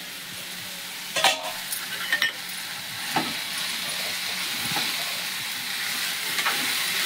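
Chirraku greens sizzling in hot oil in an uncovered metal kadai while a spatula stirs and scrapes through them; the leaves have wilted down. A few sharp knocks of utensils on the pan come through the sizzle, the loudest about a second in.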